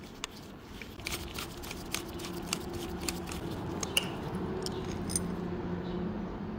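Small metal clicks and taps of a hand tool against screws and the metal switch housing while the rear screw of a motorcycle's right-hand handlebar switch assembly is undone. Under them runs a faint, low, steady hum.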